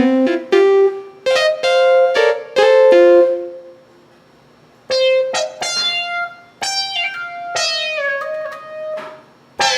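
Yamaha Sonogenic keytar played in a plucked, guitar-like voice: a quick phrase of single notes, a pause of about a second, then a second phrase whose last notes slide and waver in pitch.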